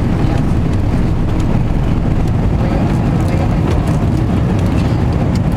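Airliner jet engines and airflow during takeoff, a loud steady rumble, with a few faint clicks or rattles.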